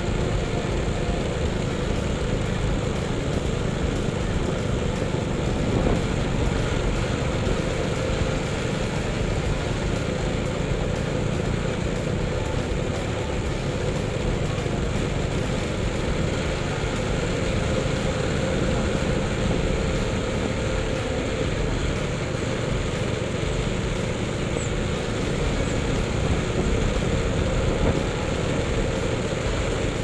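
Motorcycle running steadily as it is ridden slowly along a dirt track, its engine mixed with road and wind noise.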